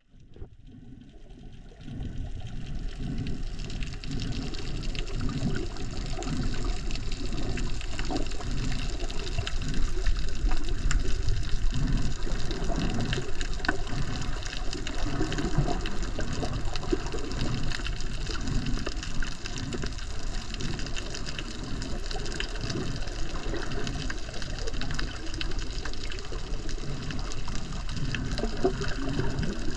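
Muffled rushing and sloshing of water heard from underwater. It starts faint and comes up fully about two seconds in, then runs on steadily with an uneven, churning low end.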